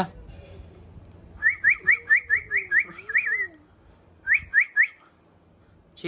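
A quick run of short, rising whistled notes, about four a second, then three more after a brief pause.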